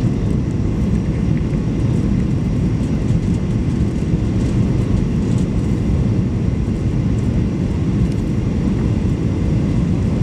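Steady low rumble of cabin noise inside a Boeing 737-800 descending to land: its CFM56-7B jet engines and the airflow over the fuselage, heard from a window seat.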